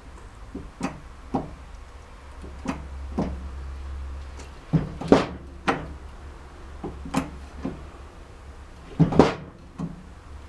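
Workshop press forcing a ball bearing, gripped in a bearing splitter, off a BMW R100RS gearbox input shaft: a string of sharp clicks and cracks at uneven intervals as the bearing is loaded and shifts on the shaft, the loudest about five and nine seconds in.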